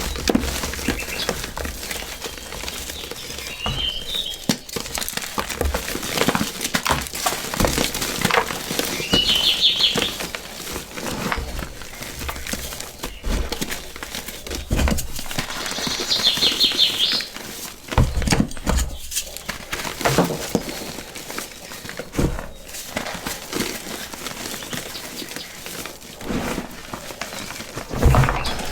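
Crispy, gritty crunching and crackling of a crumbly block being crushed. Birds chirp in short trills several times in the background.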